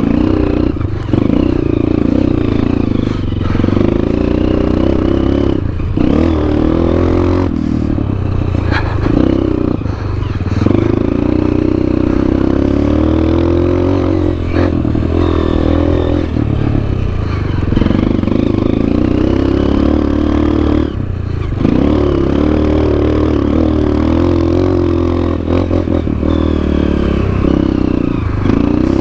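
Honda CRF230F dirt bike's single-cylinder four-stroke engine running under load, its revs dropping briefly several times and climbing again. A few short knocks sound over it.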